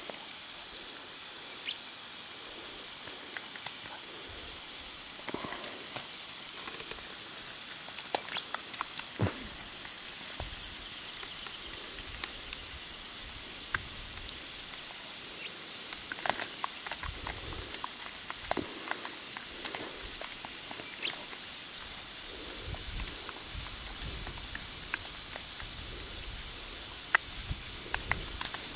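Water spraying under pressure from a leaking bore pipe, a steady hiss, with scattered sharp clicks as a puppy jumps and plays in the spray.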